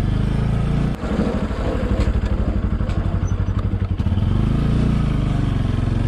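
Bajaj Pulsar motorcycle's single-cylinder engine running as it is ridden slowly, heard from the saddle. The sound drops briefly about a second in, and the engine note changes about four seconds in as the bike takes a bend.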